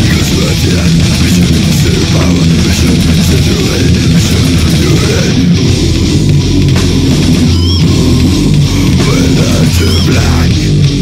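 Technical death metal recording: fast, dense distorted electric guitar riffing over bass guitar, with two short high squealing notes near the end.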